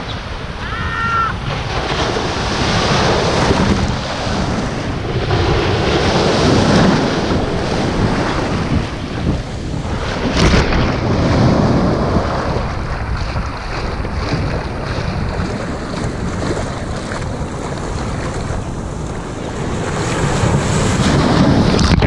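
Ocean shore break: small waves crashing and washing up over sand right at the microphone, swelling and ebbing every few seconds. Wind rumbles on the microphone underneath.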